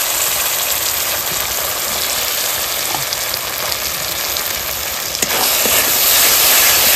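Poppy seed and green chilli paste sizzling in hot oil with onion and tomato in a metal karai, stirred with a metal spatula that scrapes lightly against the pan now and then. The sizzle grows louder about five seconds in.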